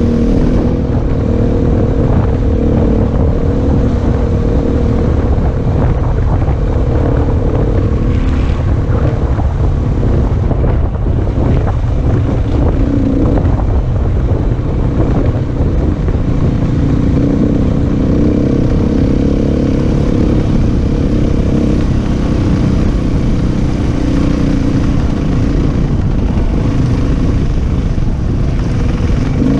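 Dirt bike engine running steadily under way on a rough trail, heard from the bike, with wind buffeting the microphone.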